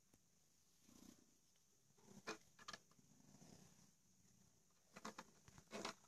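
Domestic cat purring softly while being brushed with a bristle brush. The brush strokes through its fur make short rustling scrapes, a pair about two seconds in and several more near the end, louder than the purr.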